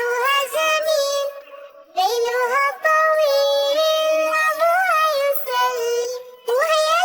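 A high-pitched child-like voice sings a children's song melody unaccompanied, with long held and gliding notes and a short break about a second and a half in.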